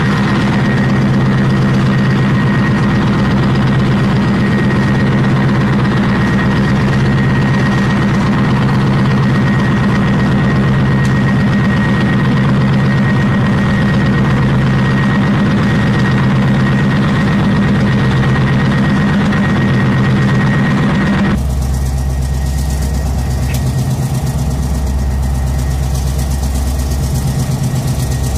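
PzH 2000 self-propelled howitzer's diesel engine idling steadily, with a thin high whine over the hum. About three-quarters of the way through, the sound changes abruptly to a deeper idling rumble without the whine.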